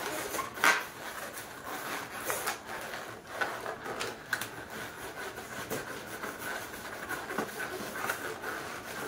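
Hands pressing and rubbing an inflated latex modelling balloon against a wall: continuous rubbing of rubber, with a few sharper scrapes, the strongest about half a second in.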